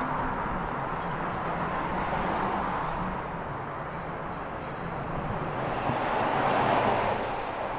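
Road traffic: steady tyre and engine noise, with a vehicle swelling past about six seconds in.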